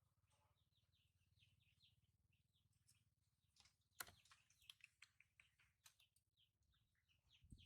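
Faint, rapid high chirping throughout, with a sharp click about four seconds in.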